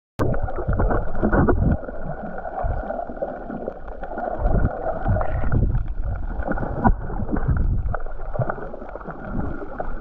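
Muffled rushing and gurgling water picked up by a camera held underwater, with low rumbling and scattered clicks. It cuts in suddenly just after the start.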